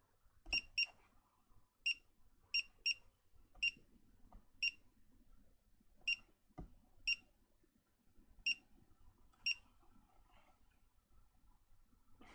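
Revitive foot circulation machine beeping: about a dozen short, high electronic beeps at uneven intervals, some in quick pairs, with a couple of soft knocks. The beeps come from the repaired unit, now powered and working.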